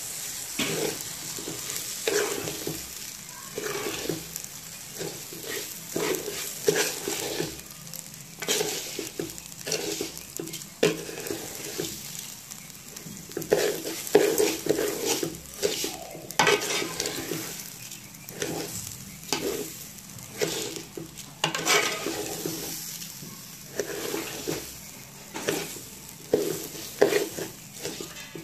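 A metal spoon stirring raw rice frying in oil in a metal pot: repeated, irregular scrapes of the spoon through the grains and against the pot, over a steady frying sizzle.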